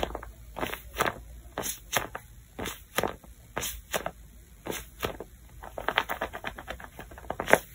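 A paper squishy being squeezed and pressed by hand, its paper skin crinkling and crackling in short bursts about twice a second, with a louder crunch near the end.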